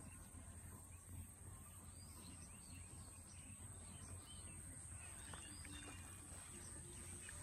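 Faint outdoor ambience: scattered faint bird chirps over a steady high-pitched whine and a low hum.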